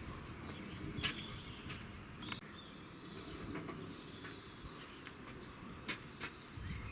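Outdoor background noise with faint bird chirps and a few sharp clicks.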